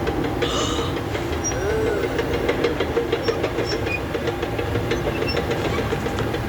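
Airport Express train running into a station platform: a steady rumble with a held motor hum and scattered faint clicks from the rails.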